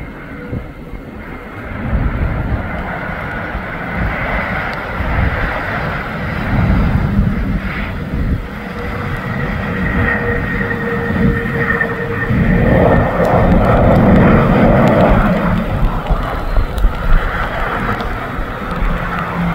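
Airbus A321 jet engines during the landing rollout on a wet runway. The noise builds about two seconds in and is loudest around twelve to sixteen seconds in, with a thin high whine running through it.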